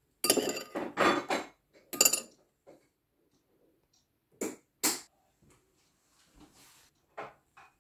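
Light clinks and knocks of dishes and utensils being handled: a quick cluster of about five in the first two seconds, two more about halfway, and a few fainter ones near the end.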